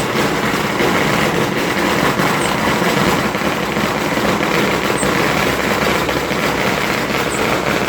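Ground firework fountain spraying, a loud, steady hissing rush that goes on without a break.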